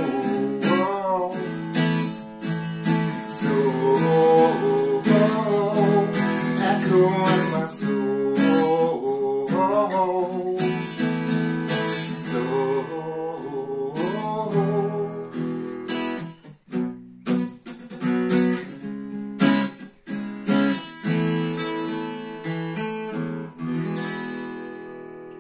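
Guitar strummed through the song's instrumental ending, chord after chord; the playing thins out and the last chord rings on and fades near the end.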